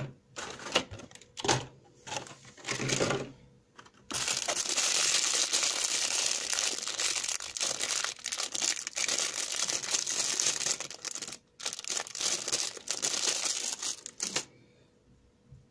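Thin clear plastic packaging being handled: a few short rustles and taps, then about ten seconds of steady crinkling as a small plastic bag is squeezed and turned in the hands. The crinkling breaks off briefly once and stops sharply near the end.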